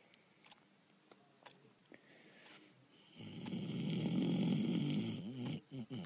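A person snoring: after a quiet start, a long, loud snore begins about three seconds in and breaks into wavering, uneven pulses near the end.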